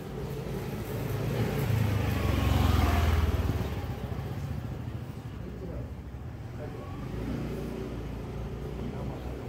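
A motor vehicle passing close by on the street: engine and tyre noise swell up, loudest about three seconds in, then fade away.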